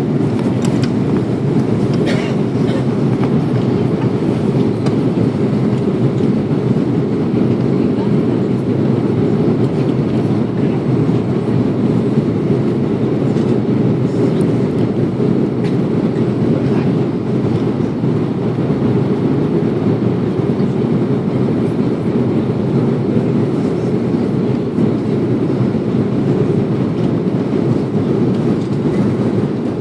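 Passenger airliner landing: a steady, loud, low rumble of engine and airframe noise, with faint intermittent clatter.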